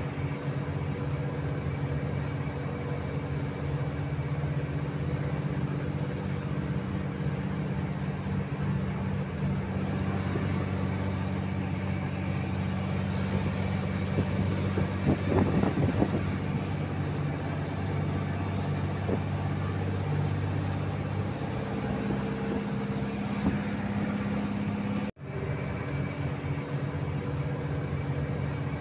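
A heavy truck's engine drones steadily, heard from inside the cab while cruising on the highway, with road noise under it. A brief louder noise comes about halfway through. The engine note shifts a little past the middle, and the sound drops out for a moment near the end.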